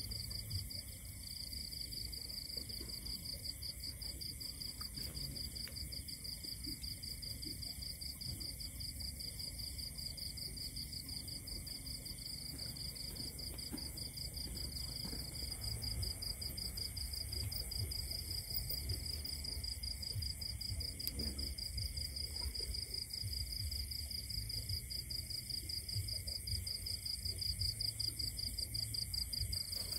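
Night insects trilling in a continuous high-pitched chorus, with a low rumble underneath.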